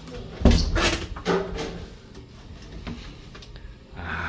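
Wooden wardrobe doors pulled open by their metal knobs. There is a loud knock about half a second in and another about a second later, then a few faint clicks.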